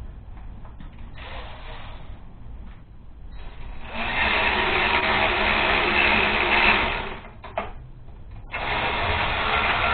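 A power tool runs in two bursts of about three seconds each, about four seconds in and again near the end, as the bolts of an exhaust pipe are run in on a small Honda-type engine.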